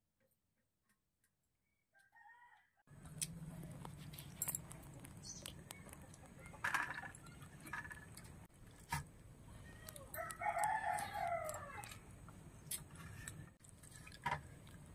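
Near silence at first. About three seconds in, a low steady background starts, with scattered light clicks of fingers working rice on a steel plate. About ten seconds in, a rooster crows once.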